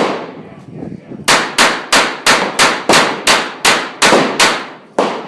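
.22 rimfire pistol firing: a single shot, then after about a second a rapid, even string of about a dozen shots, roughly three a second, each with a short ringing tail.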